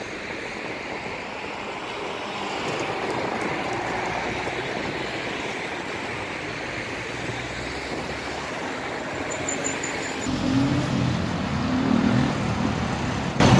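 Steady street traffic noise of passing cars, with a lower hum joining about ten seconds in.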